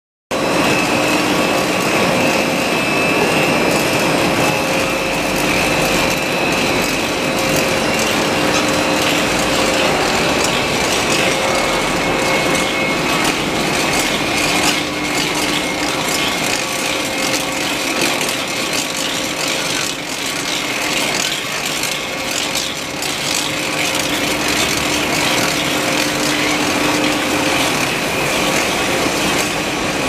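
Cable-making machinery running: steady mechanical noise with several held whining tones over a constant rattle of small clicks.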